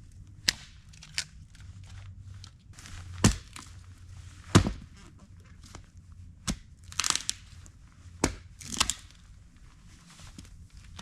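Dead sticks and branches being snapped by hand while gathering firewood: about half a dozen sharp cracks, the loudest about four and a half seconds in, and two longer splintering crackles near the end.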